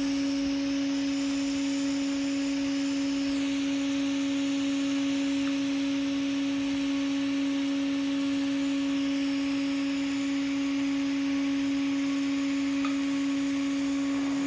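TIG welding arc on carbon steel pipe burning steadily: an even hiss over a constant hum.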